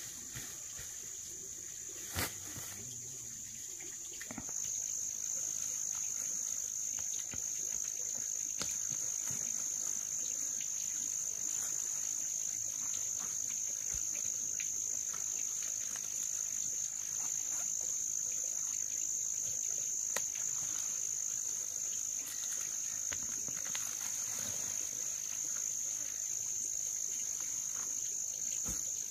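Steady, high-pitched drone of an insect chorus that grows louder about four seconds in, with occasional faint clicks and rustles from plants being handled.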